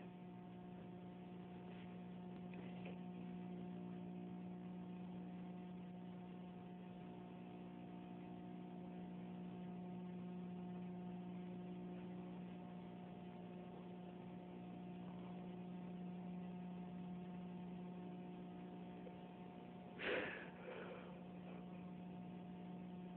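Steady electrical hum made of several fixed tones, low in level. About twenty seconds in, a person's voice sounds briefly and louder over it.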